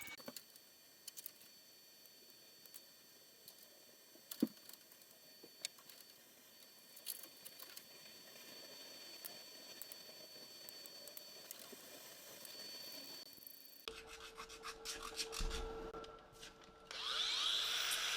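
Hand tools working the sheet steel of a car door: faint rubbing and scraping with scattered clicks. About three-quarters of the way through, a steady hum comes in, and near the end a much louder tool noise takes over.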